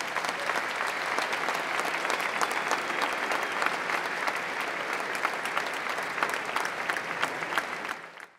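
Audience applauding, a dense steady clapping that drops away quickly near the end.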